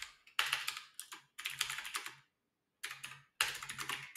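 Rapid typing on a computer keyboard in four quick bursts with short pauses between them, as a terminal command is typed out.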